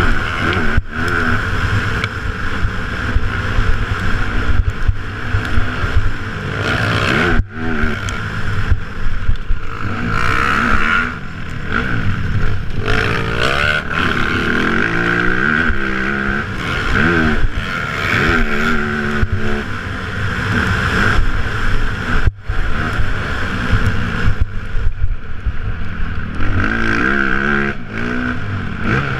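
Motocross dirt bike engine revving up and down over and over as it is ridden hard around a dirt track, heard from a helmet-mounted camera. The sound drops out for an instant twice.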